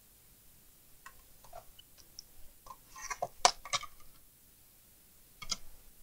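Light clicks and taps of metal tweezers working at a motherboard's coin-cell BIOS battery, then a cluster of louder knocks about three and a half seconds in as the circuit board is handled and turned over on the bench, and one more knock near the end.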